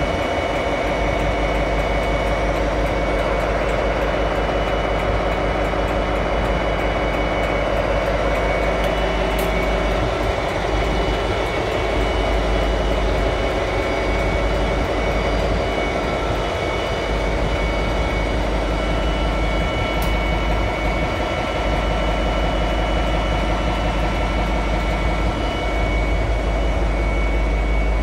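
Diesel-electric locomotive, a British Rail Class 57 with an EMD 645 two-stroke V12 engine, running steadily with a low rumble and a constant high whine over it.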